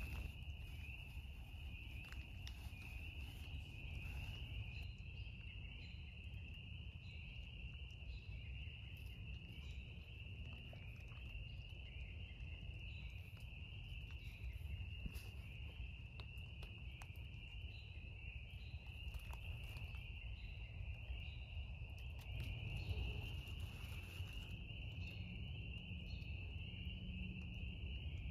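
A continuous high-pitched trilling chorus of insects, steady throughout, over a low background rumble with a few faint ticks.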